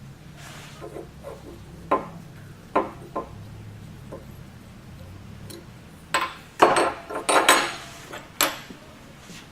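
Metal parts of a Bunsen burner clinking and knocking as they are handled and set down while the burner is taken apart: a few separate clicks, then a busier run of clatters near the end.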